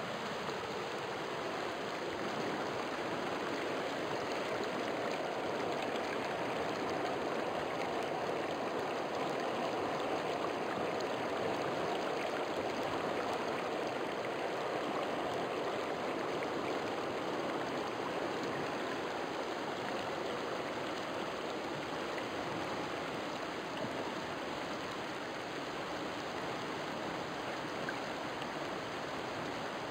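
A river flowing: a steady rush of running water, a little louder through the middle.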